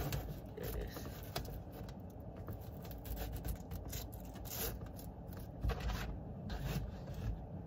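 Scrapes, rubs and small clicks of a clip-on visor mirror and its strap being fitted and tightened onto a car sun visor, the plastic and strap being handled in short uneven bursts.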